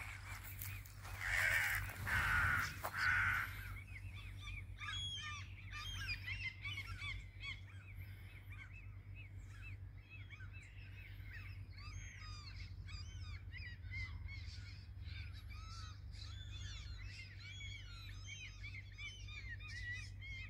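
Morning bird chorus: many small birds chirping and singing, with three loud harsh calls from a larger bird about one to three seconds in. A steady low hum runs underneath.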